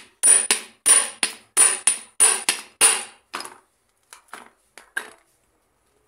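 A steel shaft is struck repeatedly to drive it into a blind bearing packed with wet paper in a scooter transmission cover: sharp metallic strikes with a brief ring, about three a second. After about three and a half seconds they turn to fainter knocks and stop about five seconds in. The paper packing is hydraulically lifting the damaged bearing out of its bore.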